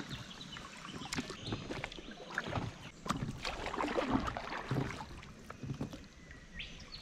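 Water lapping and splashing against a drifting boat's hull, with irregular small knocks and splashes.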